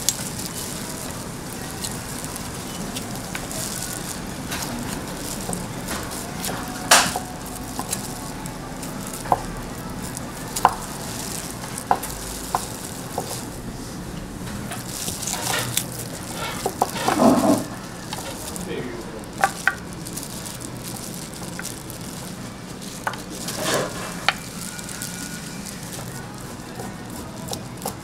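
Food sizzling as it cooks, a steady hiss, with scattered clicks and knocks of kitchen utensils. A longer clatter comes about seventeen seconds in.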